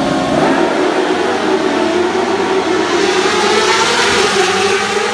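A grid of 600cc supersport race motorcycles launching together at a race start, many engines revving and climbing in pitch at once as the pack pulls away.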